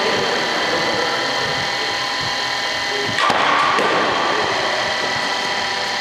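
A cricket bat striking a ball once, about three seconds in: a single sharp crack with a short ringing tail. A steady mechanical hum with several held tones runs underneath.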